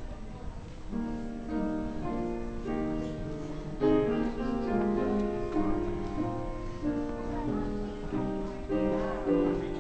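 Instrumental music playing a melody, its notes changing about every half second.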